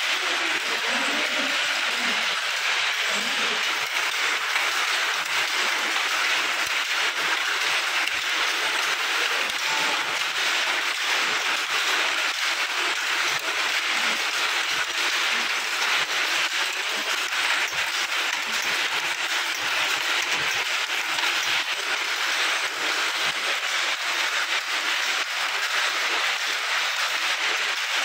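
Many cotton handlooms being worked at once, a dense, unbroken rattle of wooden and metal loom parts knocking. Shuttles are thrown and beaters strike the cloth, so the knocks overlap into one continuous clatter.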